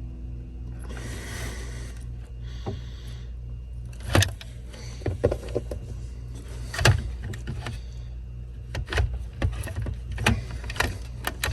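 Hand tools working small crimp connectors onto wires: a run of sharp clicks and knocks from about four seconds in, over a steady low hum.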